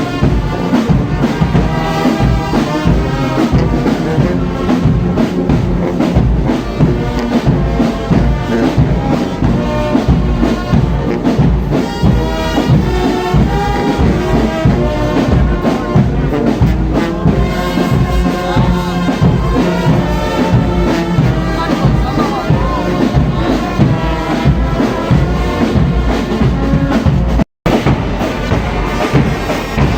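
Brass band playing, with trumpets, trombones and drums together. The sound cuts out for an instant near the end, then the band carries on.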